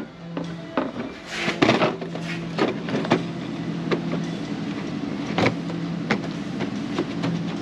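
Plastic clicks and knocks of a panel air filter being handled and seated into a plastic air filter box, with a cluster of knocks about one and a half seconds in and a sharp tap about five and a half seconds in.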